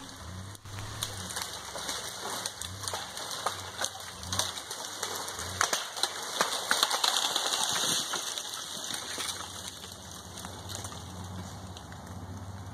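A leaning tree being dragged down by a pickup truck on a chain: dense crackling and snapping of branches as it comes down through the brush, loudest about six to eight seconds in. The truck's engine hums low underneath.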